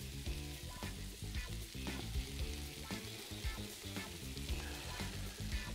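Seasoned sliced onions sizzling steadily in a very hot frying pan, just poured in from a bowl.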